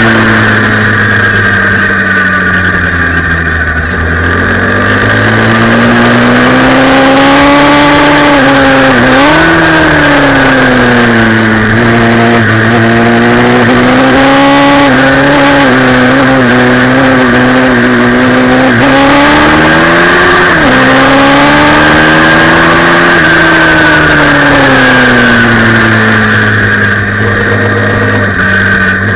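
Pit bike engine running hard on a lap, heard from an onboard camera, its pitch rising and falling with the throttle through the corners. The pitch jumps sharply about nine seconds in and again about twenty seconds in, as the rider changes gear.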